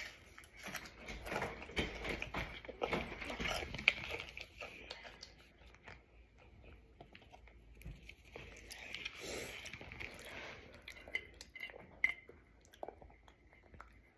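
Crunching and chewing of hot chips close to the microphone, dense for the first few seconds, then quieter and more scattered.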